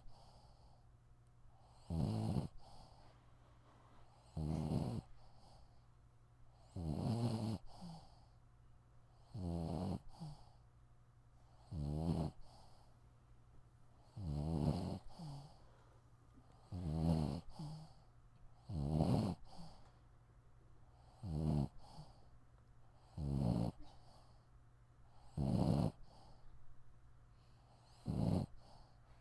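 Sleeping dog snoring in a steady rhythm, one snore about every two and a half seconds.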